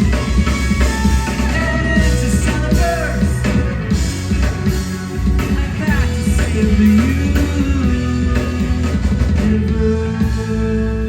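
Live rock band playing: electric guitar lines with bends over bass and drums. Near the end the drums drop away, leaving steady sustained tones.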